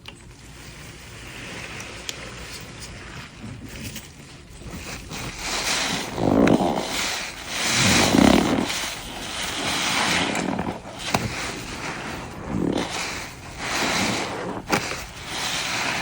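A soapy, foam-filled sponge being squeezed over and over, squelching and squeaking with each squeeze. The squeezes come about every two seconds and grow louder from about five seconds in.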